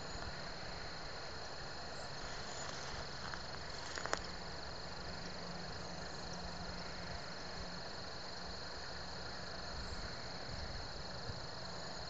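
Outdoor ambience: an even hiss under a steady, unbroken high insect trill, with a couple of faint clicks about four seconds in.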